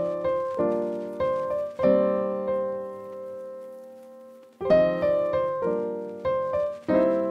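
Background piano music: a chord struck about every half second or so, one chord left ringing and fading for about three seconds in the middle, then the chords resume.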